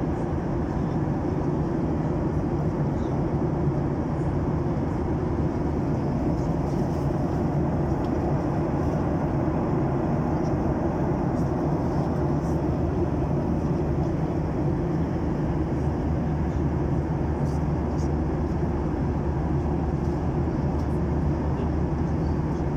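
Airliner cabin noise in cruise flight: engines and rushing air make a steady, deep rushing drone with a low hum underneath.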